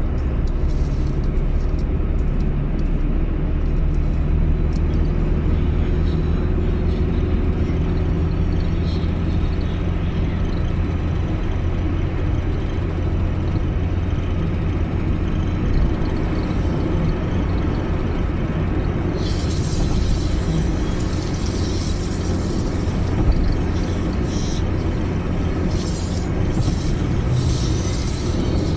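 Steady low rumble of tyre and engine noise inside a car cabin at expressway speed, with music playing faintly underneath.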